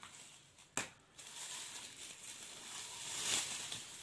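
Plastic bag and bubble wrap rustling and crinkling as a car polisher is pulled out of its packaging, with one sharp click a little under a second in.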